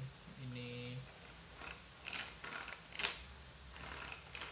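Pull-cord manual hand chopper being worked: its gear and ratchet clicking and rattling in a run of short, uneven bursts, starting about a second and a half in and the loudest about three seconds in.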